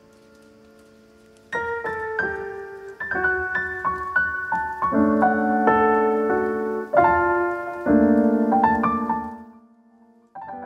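Background music: a piano playing a gentle melody of single notes and chords, quiet at first and fuller from about a second and a half in, dying away shortly before a new chord at the end.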